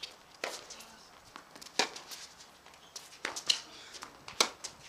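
Tennis balls struck by rackets and bouncing on a hard court during play: five sharp pops, spaced irregularly about a second apart, the loudest one about two seconds in and another near the end.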